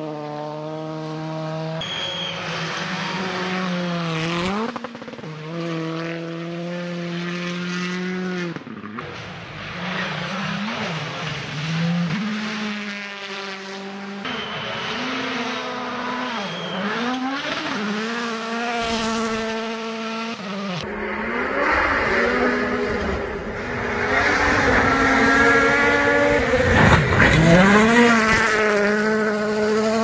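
Rally cars at full speed on gravel stages, one after another, their engines revving high and dropping back through gear changes. Tyres are heard on the loose gravel, and the gravel noise grows louder over the last third.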